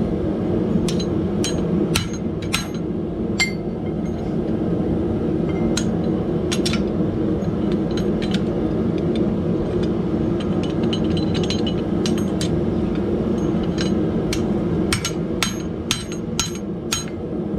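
Hand hammer striking a steel grab ring held in tongs on an anvil, bending it back into shape. The blows come in short bursts of several strikes with pauses between, over a steady low drone.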